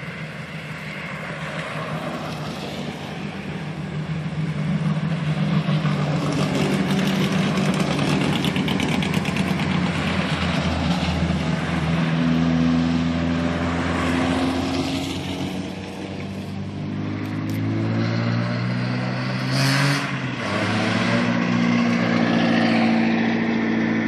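Race-prepared touring cars climbing a hill-climb course one after another, their engines revving hard through a hairpin. The pitch rises and falls with each gear change as each car accelerates past. A short, sharp burst of noise stands out about three-quarters of the way through.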